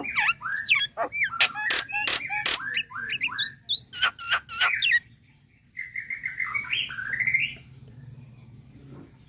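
Common myna calling: a rapid string of sharp clicks and whistled, gliding notes for about five seconds, then, after a short pause, a rising whistled phrase before it falls quiet.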